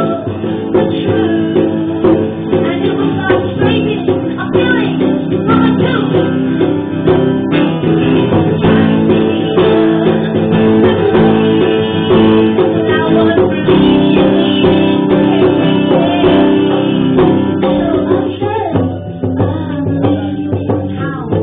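A small acoustic band playing live: strummed guitar with singing and a hand drum. The playing thins out near the end.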